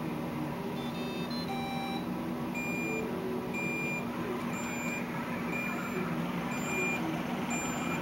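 iRobot Roomba robot vacuum beeping: a quick run of short electronic tones at different pitches, then a single high beep repeating about once a second, over a steady low hum.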